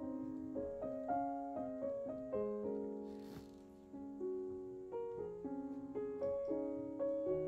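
Background piano music: a gentle melody of single notes and soft chords, each note struck and fading away.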